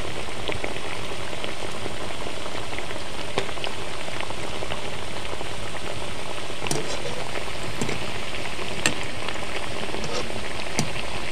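Mathri, discs of maida and semolina dough, deep-frying in hot refined oil in a kadhai over a low flame: a steady bubbling sizzle. A few sharp clicks stand out along the way.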